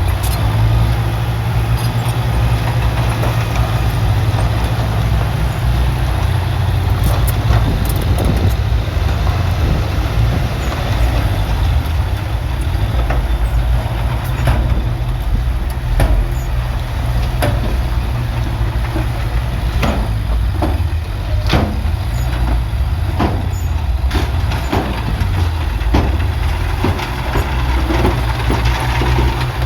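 Heavy diesel engine of earthmoving machinery running steadily with a deep rumble, with many scattered sharp metallic clanks and knocks on top.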